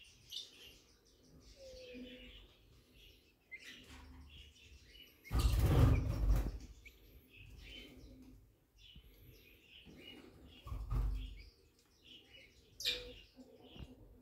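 Faint, scattered bird chirping, with a loud rustle of handling about five seconds in and a shorter one near eleven seconds.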